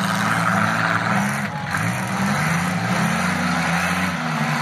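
Demolition derby car engines revving, their pitch rising and falling as the cars drive and manoeuvre, over a steady rushing noise.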